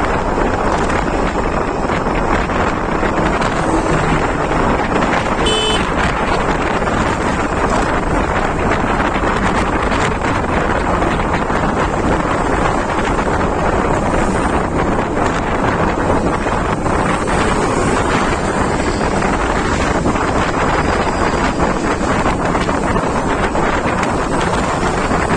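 Heavy, steady wind noise blowing across the microphone of a moving vehicle on the road. About five and a half seconds in comes a brief high-pitched tone.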